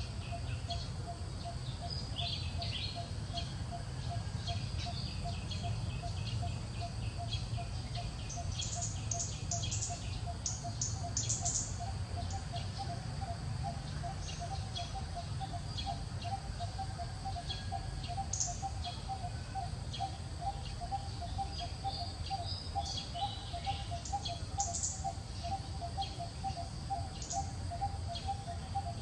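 Outdoor ambience of birds chirping in short scattered calls over a fast, evenly repeated low note and a steady low background rumble.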